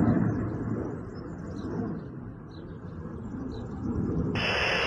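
Low, muffled rumbling noise over a narrow-band military radio channel, loudest at the start, dying down, then swelling again near the end.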